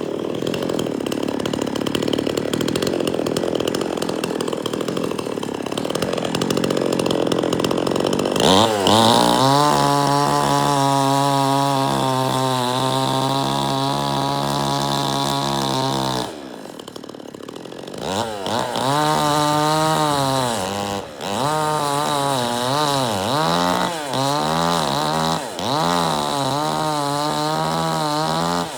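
Chainsaw running loud. For the first eight seconds or so it is a rough noise with no clear pitch, then it holds a steady high-revving whine. About sixteen seconds in it drops back for a moment, then it is revved up and down again and again.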